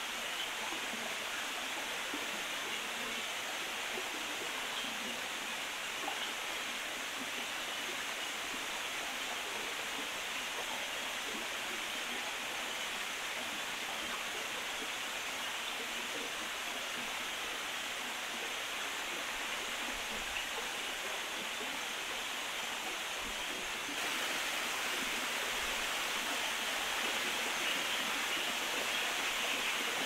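Steady rush of a small waterfall and stream splashing over rock, getting a little louder about 24 seconds in.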